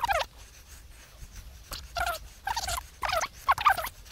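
A series of short, pitched animal calls, about six in four seconds, the first falling in pitch.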